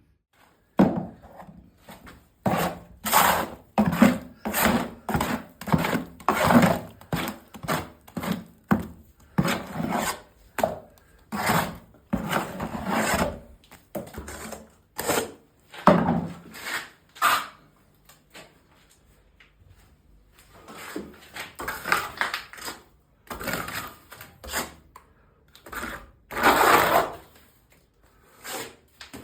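Hand-tool work: rhythmic rubbing strokes on wood, about two a second, in runs with a short pause about two-thirds of the way through.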